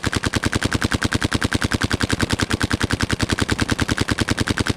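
WGP SuperStock Autococker paintball marker firing a long, rapid, evenly spaced string of shots.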